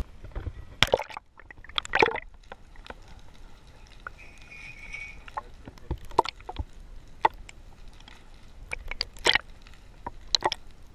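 Seawater sloshing and gurgling around a camera dipped under the surface, with irregular sharp clicks and splashes and a muffled hush between them.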